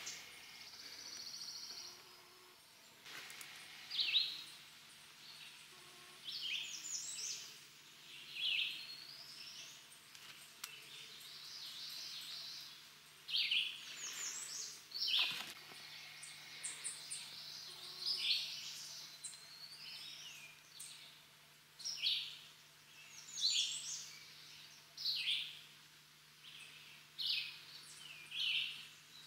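Woodland songbirds singing: short, high phrases of quick rising and falling notes, repeated every second or two, over faint background hiss.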